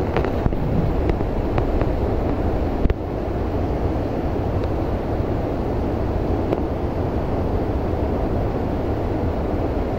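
Wind buffeting the microphone: a steady low rush that dips slightly about three seconds in, with a few faint clicks.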